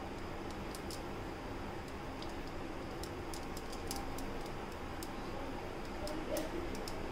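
Quiet handling of samosa dough: a steady low hiss with faint, scattered light ticks as the hands fold and press the dough shell.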